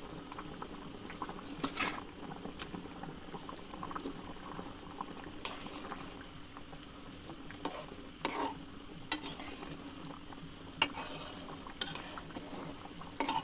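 Fish and potato curry bubbling at a boil in a metal kadai, with a metal spatula stirring it and clicking sharply against the pan several times.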